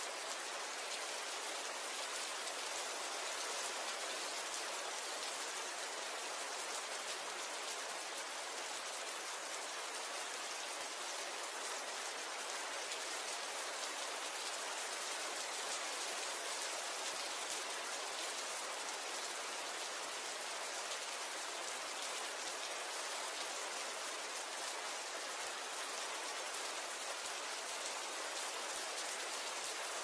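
Steady rain falling: an even, unbroken hiss of many drops, with little low rumble.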